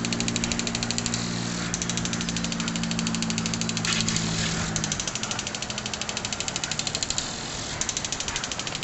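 Impact lawn sprinkler ticking rapidly as its arm strikes the water jet, in runs of about two seconds with short pauses between. A low engine hum runs underneath and stops about five seconds in.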